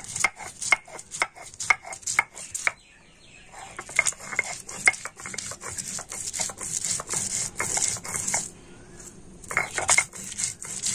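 Stone roller (nora) crushing and grinding mustard seeds, poppy seeds, cashews and green chillies on a flat grinding stone (shil). First quick stone-on-stone knocks, about three or four a second, then back-and-forth grinding strokes, with two brief pauses.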